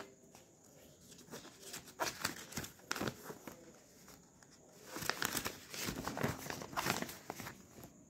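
Sheet of paper crackling and rustling as a folded invoice is handled and unfolded, in irregular bursts, most busily around two to three seconds in and again from about five to seven seconds.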